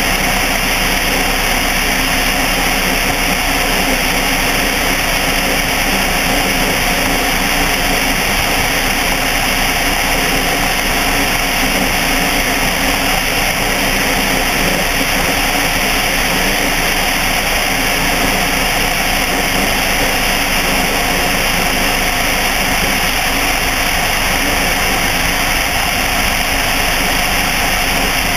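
Light aircraft's engine and propeller running steadily in flight on final approach.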